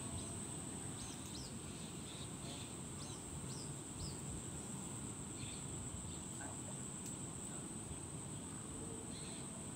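Rural outdoor ambience: a steady high-pitched insect drone, with short bird chirps scattered through and a low rumble underneath.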